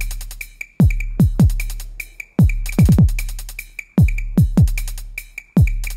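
Background electronic music with a drum-machine beat: deep kicks that drop in pitch, coming in a repeating pattern of one kick then two quick ones about every second and a half, over a steady bass and light ticking hi-hats.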